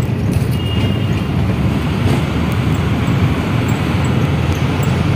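Steady, loud low rumble of a moving vehicle heard from inside its cabin, with no breaks or changes.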